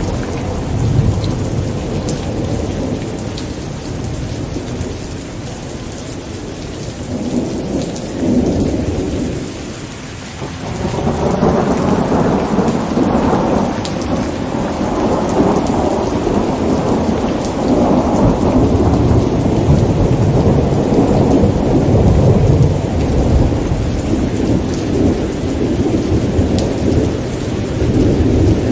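Thunder rumbling over steady rain. The rumble swells and eases, dips briefly about a third of the way in, then a long, louder roll builds and keeps going.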